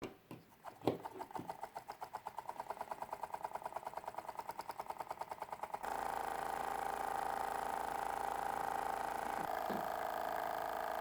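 A small battery-powered DC motor in a cardboard model washing machine running. A few knocks come first, then a fast, even ticking of about a dozen beats a second. About six seconds in, it switches suddenly to a steady whine.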